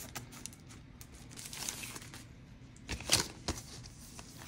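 Plastic packaging of a Pinlock fog-resistant insert crinkling and rustling as it is cut open with scissors and the contents are pulled out, with a few sharp clicks about three seconds in.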